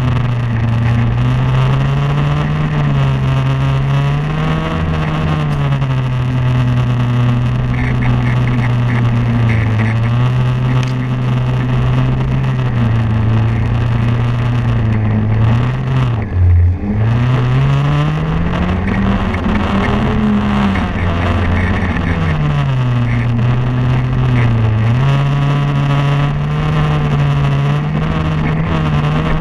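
Snowmobile engine running under changing throttle, its pitch rising and falling over and over. About halfway through the note drops sharply for a moment, then climbs again.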